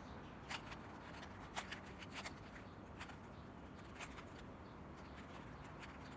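A 3x3 puzzle cube being twisted by hand: faint, irregular plastic clicks as its layers turn and snap into line, during a move sequence that brings an edge piece into the second layer.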